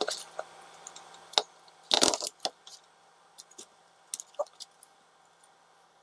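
Thick steel wire from a coil being handled and gripped with pliers while a hook is bent into its end: scattered metallic clicks and light rattles, the loudest a short rattling clatter about two seconds in.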